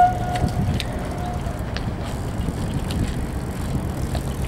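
A single clear ringing tone right at the start, fading away over about a second and a half, over a steady low outdoor rumble. Scattered light clicks and scuffs of people walking on asphalt, including flip-flops, run through it.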